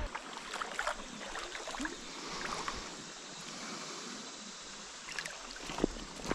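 Creek water moving around a canoe, with a few light knocks and small splashes.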